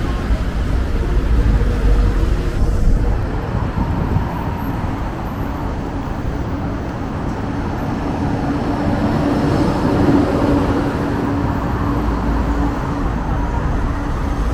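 Busy city road traffic, buses and cars passing. A steady engine hum builds in about six seconds in, loudest around ten seconds, as a bus goes by.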